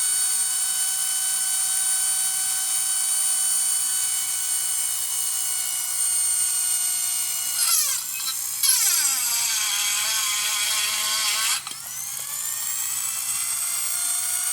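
Central Pneumatic air compressor motor, its cooling fan removed, running flat out with a high-pitched whine while being run to destruction. About eight seconds in its pitch drops sharply and it runs lower and rougher for a few seconds, then drops in level and climbs back up to its high whine near the end.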